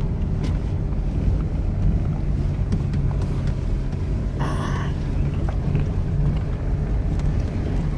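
Car driving slowly on a dirt field road, heard from inside the cabin: a steady low rumble of engine and tyres, with a short hissing noise about four and a half seconds in.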